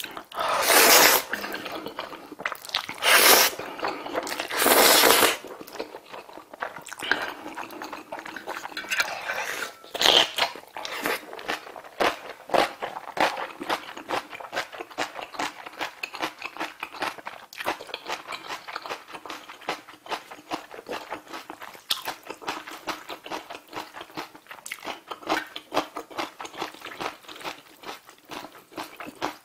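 A person slurping jjajang ramen noodles in three loud bursts over the first five seconds, then chewing with many small wet clicks.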